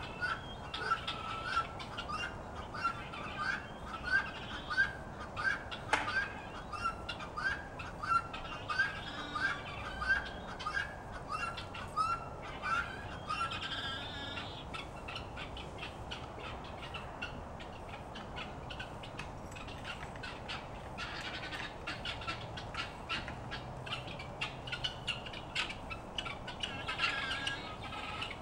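Farm poultry calling: a run of short, repeated calls, about two a second, through the first half, then only a few scattered calls over a quiet outdoor background.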